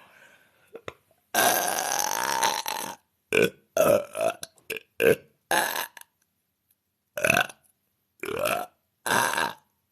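A woman belching: one long, loud burp lasting nearly two seconds about a second in, followed by a string of shorter burps.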